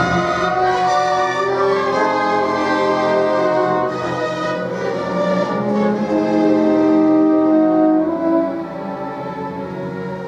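Solo violin playing with an orchestra in a classical piece, long bowed notes over the accompaniment; the music gets softer about eight seconds in.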